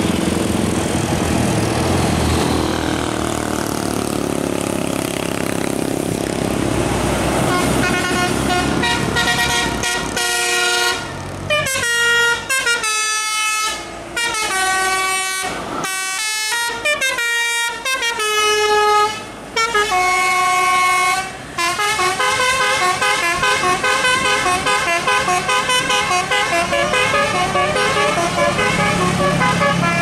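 A tour bus engine and tyres pass for the first few seconds. Then a bus's multi-tone musical air horn (a 'telolet' horn) plays a tune of stepped notes from about eight seconds in, with short breaks between phrases, and a faster unbroken run of notes near the end.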